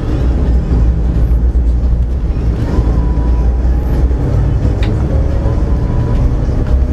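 Steady low rumble of a tour bus driving through city streets, heard from inside the cab, with music playing over it.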